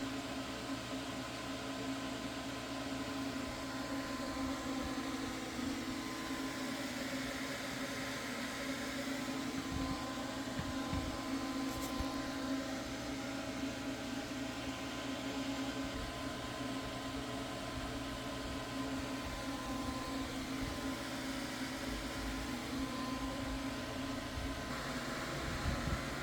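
R600a household refrigerator running after its recharge: a steady hum of the compressor and fan, with a few faint steady tones.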